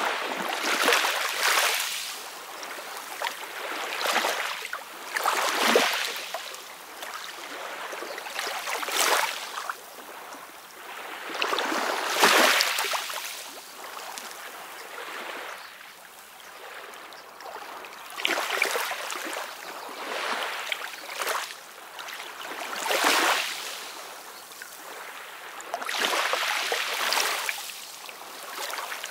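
Small waves splashing and lapping at the water's edge, a splash swelling and falling away every two to three seconds.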